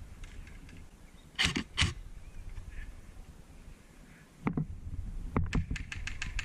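Airsoft guns firing: two sharp cracks about a second and a half in, two more single cracks later, then a quick even string of shots near the end. A low rustle of wind and movement runs underneath.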